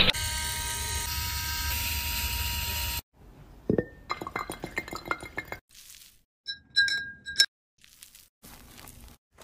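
A steady hum with several held tones that cuts off abruptly about three seconds in. Then glass and metal clink and tap as a cat's paw handles a coconut on a glass tumbler and a metal scoop over a moka pot. A couple of brief ringing metallic notes come near the end.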